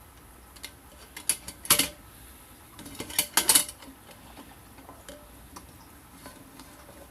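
Light metal pieces clinking and clattering as they are handled: a few scattered clicks, with two short runs of louder clatter about a second and a half apart in the first half.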